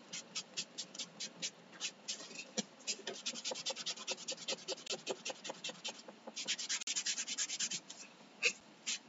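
Baby wipe rubbed back and forth over a painted, laser-engraved wooden ornament, wiping dark brown paint along the wood grain in short, quick strokes. The strokes speed up for about a second two-thirds of the way through.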